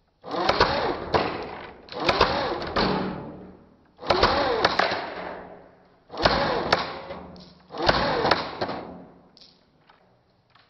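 Airsoft gun fired five times, roughly every one and a half to two seconds; each shot starts sharply and trails off over about a second.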